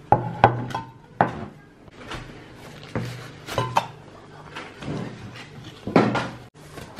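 Knocks and clatter of a plastic divided tray and a rolled woven plastic mat being handled on a tabletop, with rustling in between. The loudest knocks come right at the start and about six seconds in.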